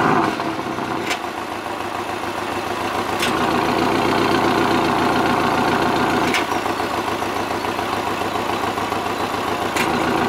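Porsche 718 Cayman GTS's 2.5-litre turbocharged flat-four idling through its sports exhaust with the valves open, just after start-up: the start-up flare dies away at the very beginning and the idle then settles to a steady note. A few faint sharp ticks sound through it.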